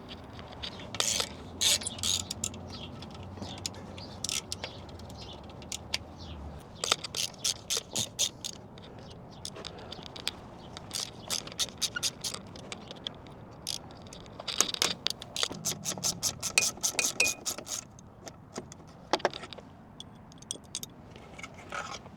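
Hand socket ratchet clicking in quick runs, about eight clicks a second, as the alternator's fasteners on a Peterbilt 389 semi are backed out. Scattered scrapes and knocks of metal tools come between the runs.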